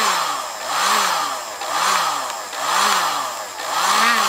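Heat gun blowing, its sound swelling and fading about once a second with a pitch that rises and falls each time. It is gently warming a valve receiver's bandswitch wafers to dry them out so an intermittent crystal oscillator starts again.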